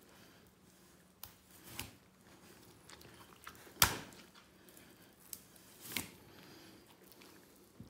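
A handful of sharp knocks and clicks, five or so spread out irregularly, the loudest about four seconds in, over a quiet room background.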